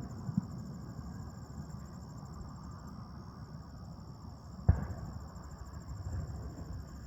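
Night insects trilling steadily in a high, pulsing chorus over a low outdoor rumble, with a single distant firework boom about two-thirds of the way through.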